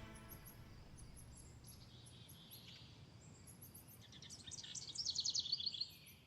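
Birdsong: faint high chirps, then about four seconds in a songbird sings a louder fast trill of repeated notes that falls in pitch, lasting about two seconds.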